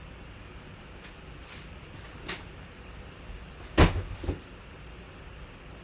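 A few short knocks over a steady low hum: a light one about two seconds in, then a louder run of three knocks close together near four seconds.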